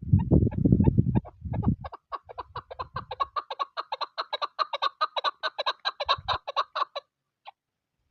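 Wind gusting on the microphone for about two seconds, then a chukar partridge calling: a fast, even run of clucking notes, about nine a second, that stops about seven seconds in.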